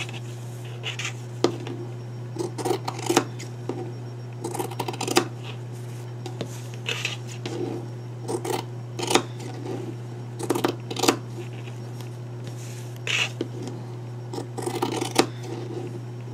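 Scissors snipping through fabric and cotton batting in a series of short, irregular cuts.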